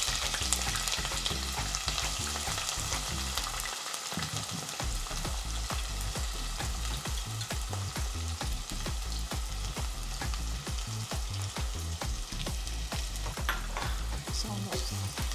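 Sliced red onions sizzling in hot oil in a non-stick pot: a steady crackling hiss. Near the end a wooden spatula stirs them.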